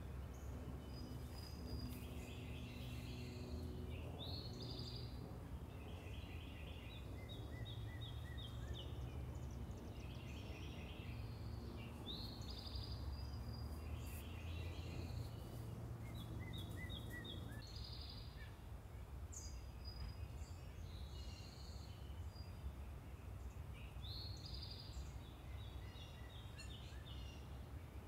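Songbirds singing short, trilled phrases repeated every couple of seconds over a steady low rumble of distant traffic.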